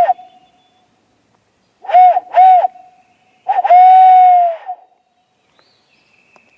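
Barred owl hoots, loud and close: one hoot, then two quick hoots, then a long drawn-out hoot that falls away at the end.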